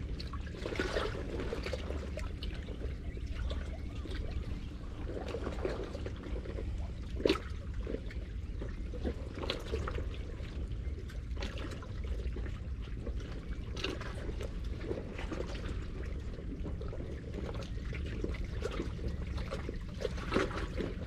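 Seawater sloshing and trickling among breakwater rocks, with many small irregular splashes over a steady low rumble, and one sharper click about seven seconds in.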